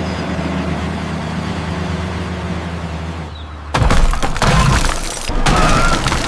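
Cartoon smashing sound effect: a sudden loud crash of breaking, like shattering glass, a little over halfway through, after a steady low hum, followed by short whistling tones.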